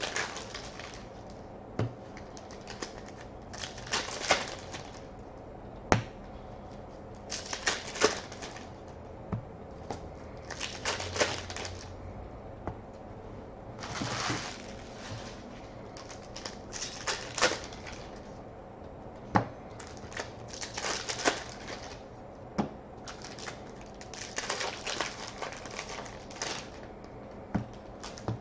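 Foil trading-card pack wrappers being torn open and handled, crinkling in bursts every three to four seconds, with sharp clicks of cards tapped or set down on the table in between.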